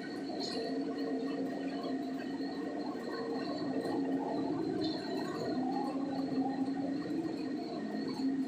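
Concrete pump truck and concrete mixer truck running steadily while concrete is pumped up the boom: a continuous mechanical drone with several held, slightly wavering hums.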